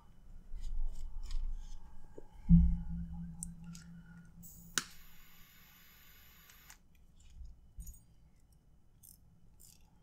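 A knife trims nylon paracord with a few light clicks, then a loud knock about two and a half seconds in, followed by a low hum. A butane torch lighter clicks on nearly five seconds in and its jet flame hisses steadily for about two seconds while it singes the cut end of the cord.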